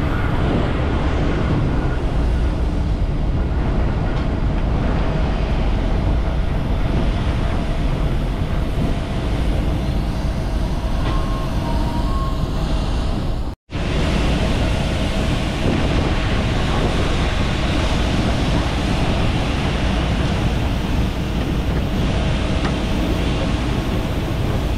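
Steady, loud rumble of engine and machinery noise on an airport apron, with a faint steady whine above it; it drops out for an instant about halfway through.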